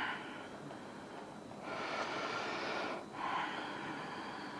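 A woman breathing slowly and audibly in a yoga pose. There are two long, airy breaths, the first starting just under two seconds in and the second following straight after it.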